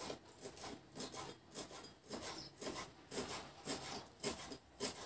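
Kitchen knife chopping fresh dill on a cutting board: a steady run of quick chops, about three a second.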